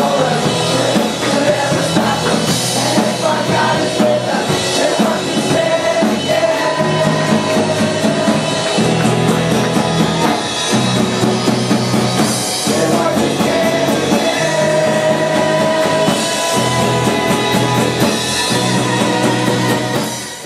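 Rock-style worship song: a band with drum kit and a singing voice, loud and steady, cutting off abruptly at the end.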